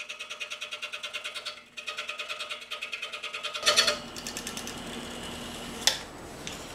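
Scroll saw cutting a polycarbonate sheet, heard sped up as a fast, evenly pulsing buzz. A little over halfway it changes to a steadier, noisier cutting sound with a brief loud burst, and a sharp click comes near the end.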